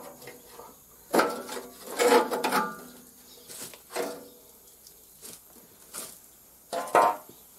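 A series of irregular metallic clanks and knocks as parts of a Yanmar diesel walking tractor are handled by hand, loudest about one to two and a half seconds in and again near the end. The engine is not running.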